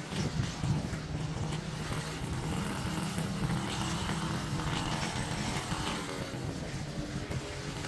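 Small gasoline engine of lawn-care equipment running steadily under load.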